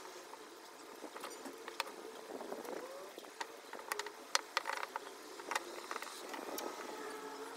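Scattered small clicks and taps of hand-painting a wooden board with a brush, over a faint steady background.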